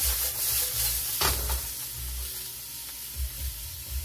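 Shrimp and vegetable stir-fry sizzling steadily in a hot wok as it is tossed and stirred, with one louder scrape about a second in.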